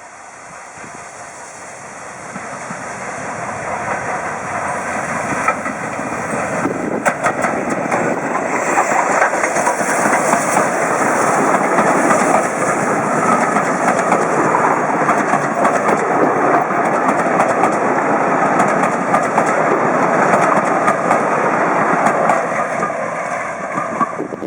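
Steam-hauled train passing at close range, growing louder over the first several seconds and then holding steady, with the clatter of wheels over rail joints.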